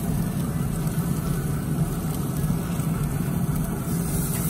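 Pit Boss pellet grill running on high with the lid open: a steady low hum from its fan and the burning pellet fire under the grate.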